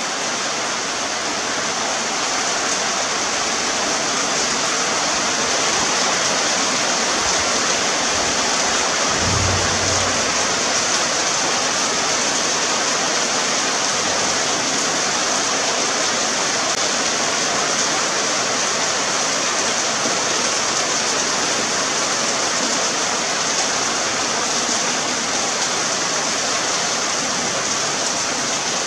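Heavy rain falling, a steady loud hiss. A brief low thump comes about nine seconds in.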